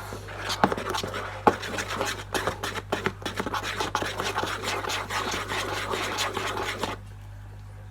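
Slime mixture being stirred in a bowl, with a utensil scraping and rubbing against the bowl in quick, irregular strokes. The stirring stops about seven seconds in.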